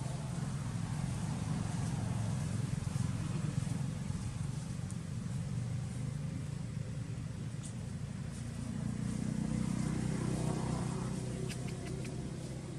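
A low, steady motor rumble, swelling a little about nine seconds in, with a few faint clicks near the end.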